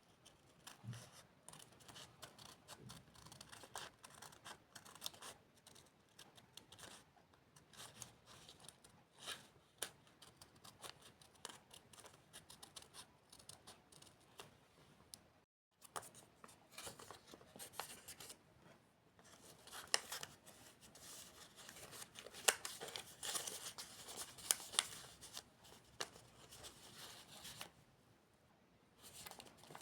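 Scissors snipping through paper in many short cuts, with paper rustling and handling. There is a brief break about halfway, and the snips come thicker and louder in the second half.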